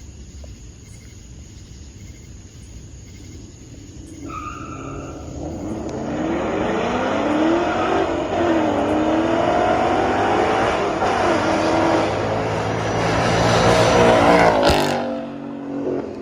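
Short beep about four seconds in, then a vehicle engine revving hard and accelerating, its pitch climbing and dropping back a few times. It gets louder toward the end and cuts off suddenly near the end.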